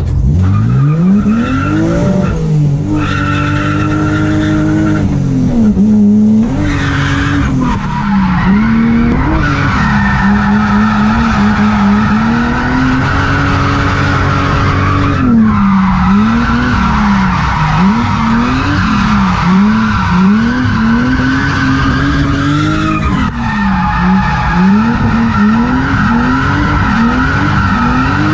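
Drift car's engine heard from inside the cabin, revving up and down over and over as the car slides, with the tyres skidding and squealing. In the second half the revs swing up and down quickly, about once a second.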